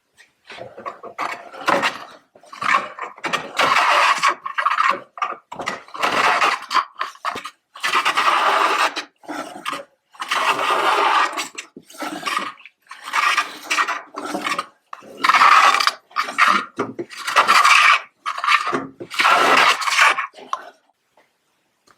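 Wooden hand plane being pushed over a board in repeated strokes, shaving wood, about a dozen strokes each lasting around a second with short pauses between. The restored plane is cutting.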